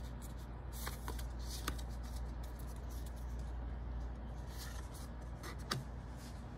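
Pokémon trading cards being slid and flipped one by one by hand: faint rustling and a few clicks as the cards rub and tap against each other, over a steady low hum.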